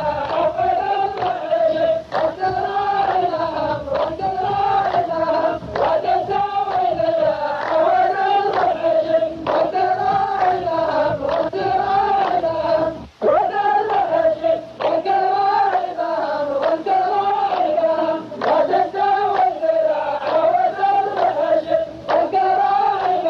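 A chorus of men chanting a poet's verse in unison as a drawn-out, wavering refrain in repeating phrases, with sharp claps through it: the rows of a qalta poetry duel taking up the line between the poets' turns.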